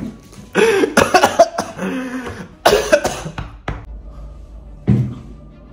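A man coughing several times in short, loud bursts.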